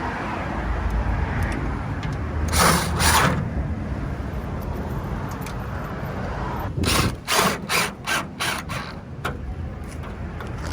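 A hand tool being worked in strokes: two strokes about two and a half seconds in, then a run of about seven quick ratcheting strokes, roughly three a second, about seven seconds in.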